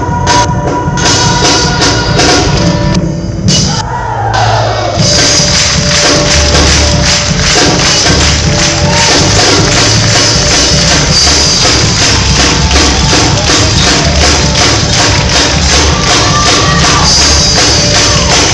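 Loud live music with a crowd singing together, sustained notes at first. From about five seconds in, tambourines shake in a fast, steady rhythm.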